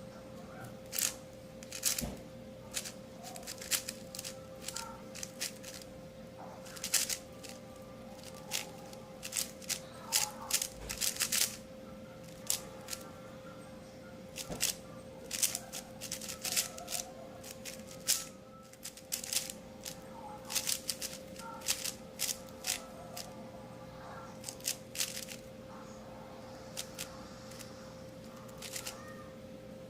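Magnetic Yuxin Blue 4x4 speedcube being turned fast through a solve: irregular runs of quick plastic clicks, with short pauses between bursts.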